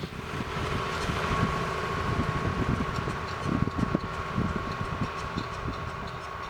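A machine starts up and runs steadily, with a constant hum and irregular rattling and knocking.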